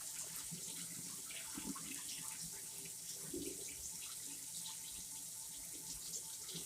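Water running from a kitchen faucet into the sink, a steady hiss with small splashes and clinks, as soaked rice is rinsed in a fresh change of water.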